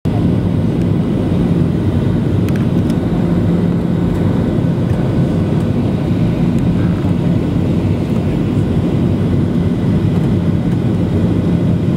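Cabin noise in a Boeing 737-800 on approach: the CFM56-7B26 turbofan engines running with the rush of airflow past the fuselage, a steady low hum underneath.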